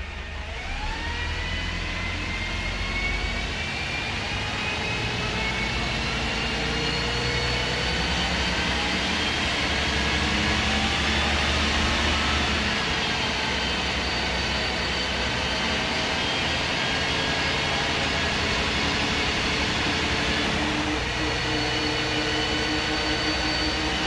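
MAN SD202 double-decker bus, its MAN D2566 MUH diesel and Voith Diwa 851 automatic gearbox heard from on board, pulling away. High whines rise over the first few seconds, then the bus runs steadily with a low engine drone and a constant gearbox whine.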